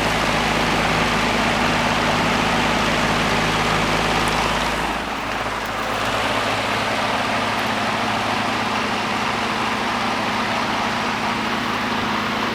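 Vintage all-metal Cool Home box fan, likely mid-1960s, running steadily on high speed: a rush of moving air over a steady motor hum. About five seconds in the deep rumble drops away and the sound shifts slightly.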